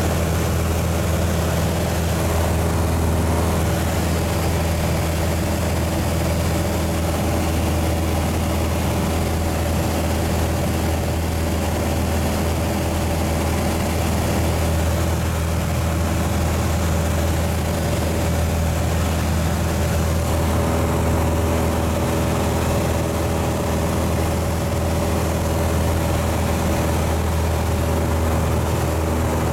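Piper PA-28 Cadet's four-cylinder Lycoming O-320 engine and propeller droning steadily at cruise power, heard inside the cabin. The low hum and its overtones stay even throughout, with a slight shift in the higher tones about two-thirds of the way through.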